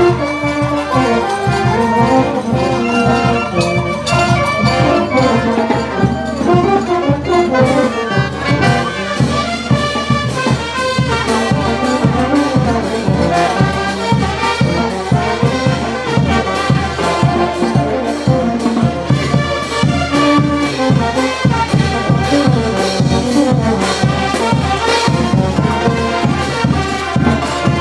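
Brass band playing festive traditional dance music, trumpets and trombones carrying the tune over a steady drum beat.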